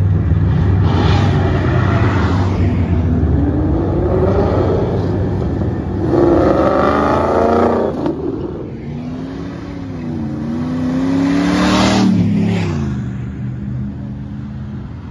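Ford Mustang accelerating hard at full throttle, engine pitch climbing in several long sweeps broken by gear changes, then falling sharply about twelve seconds in.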